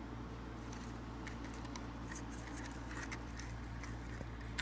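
Faint handling noise: scattered light clicks and scratches of hands on plastic over a steady low hum.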